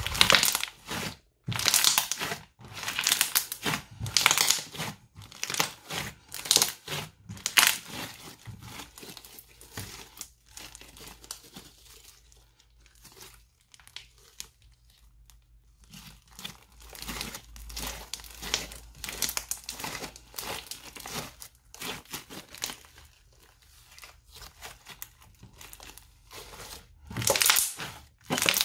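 Crunchy bead-studded slime being squeezed, stretched and folded by hand, giving off irregular crackling, crunching bursts. The crackles are loudest and thickest over the first eight seconds or so and again near the end, softer and sparser in between.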